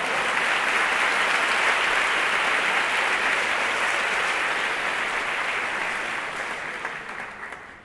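Large audience applauding: the clapping swells up at the start, holds steady, and dies away near the end.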